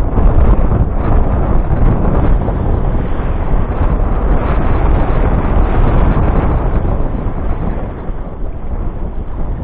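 Loud, steady wind buffeting the microphone aboard a sailboat under way in a gale, with the rush of wind and sea around the boat. The noise eases slightly near the end.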